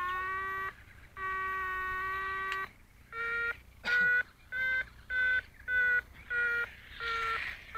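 Variometer audio from the glider's telemetry: a steady electronic tone with short breaks. From about three seconds in it turns into short beeps at a slightly higher pitch, about two a second, the beeping a variometer gives when the glider is climbing.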